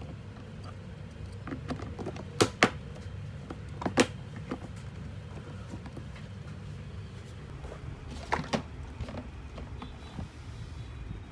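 Hard plastic clicks and knocks as black plastic handles and trim are pressed onto a ride-on toy car's plastic body: a double click about two and a half seconds in, a sharper single one at about four seconds, and another pair about eight and a half seconds in, over a steady low hum.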